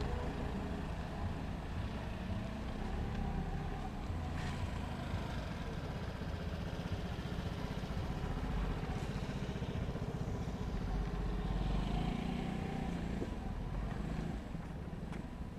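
City street ambience: a steady rumble of traffic in the background, with a vehicle passing that swells and fades about two-thirds of the way through.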